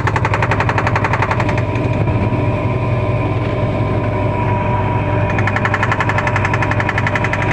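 LG washing machine spinning, its drum making a loud, rapid, evenly repeating rattling knock over a steady motor hum. The owner traces the noise to the ring on the tub: it goes away with the ring removed.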